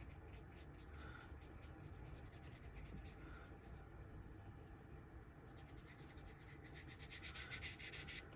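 Faint scratching of a squirrel-hair watercolor brush stroking a wash across watercolor card. The rapid scratchy strokes grow denser and a little louder over the last few seconds.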